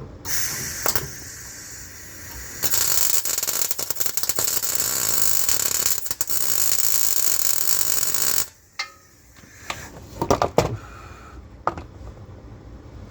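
A welding arc hissing and crackling as tack welds are laid on a steel crossmember mount. It is softer for the first two seconds, then louder for about six seconds, and cuts off suddenly. A few sharp knocks and clatters follow.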